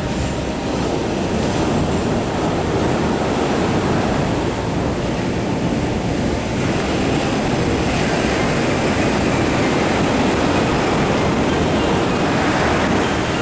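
Ocean surf breaking and washing up a sandy beach, a loud, steady wash of waves.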